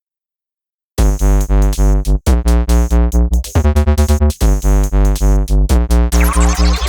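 Electronic music with synthesizer chords over a pulsing bass beat, starting about a second in after silence, with a rising sweep near the end.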